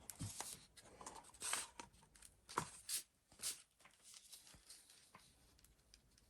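Small handling noises: short scrapes and rustles with a few light clicks, busiest in the first three and a half seconds, then a few faint ticks.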